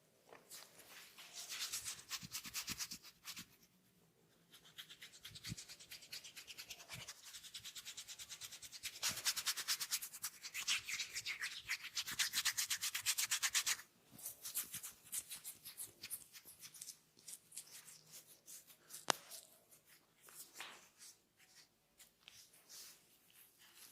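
Hands rubbing oiled skin in quick, rapidly repeated massage strokes. The strokes come in bursts, loudest in the middle, then turn sparser, with one sharp click late on.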